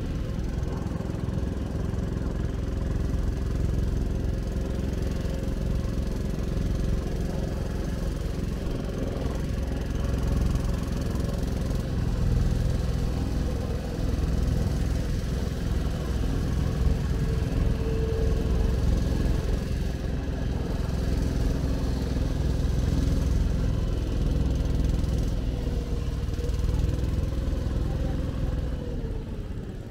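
Engine of a small passenger sea bus boat running steadily under way, a constant drone with a low rumble. Near the end its pitch drops and it gets quieter as the engine eases off.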